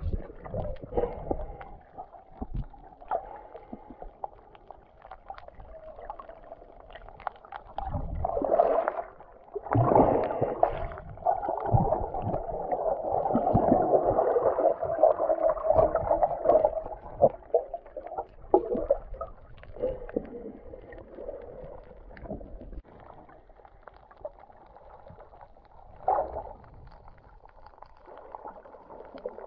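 Muffled underwater sound of churning water and bubbles heard through a waterproof camera housing, swelling louder for several seconds in the middle.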